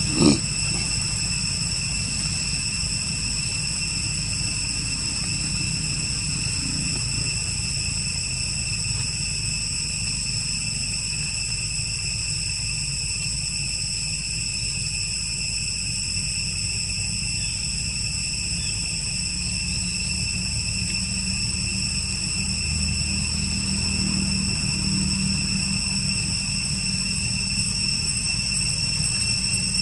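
Steady high-pitched insect drone, unchanging throughout, over a low rumble of background noise. A brief knock sounds right at the start.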